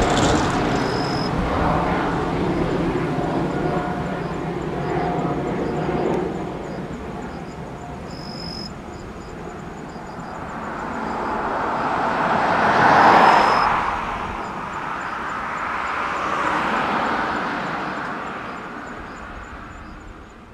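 Boeing 777-300's twin jet engines rumbling in the distance as the airliner climbs away after takeoff, the sound fading gradually, with one swell about two-thirds through before dying away.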